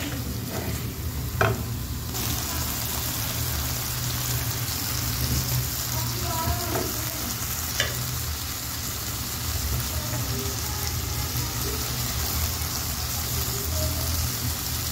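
Marinated chicken pieces sizzling in oil in a pan over low heat, being stirred with a spatula. The spatula knocks sharply against the pan a couple of times. The sizzle grows fuller about two seconds in, over a steady low hum.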